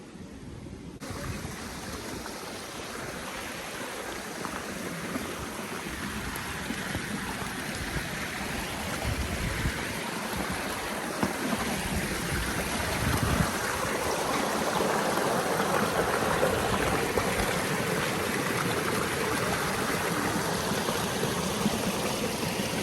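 Running water, a steady rushing like a stream or brook, growing gradually louder through the first half or more and then holding level.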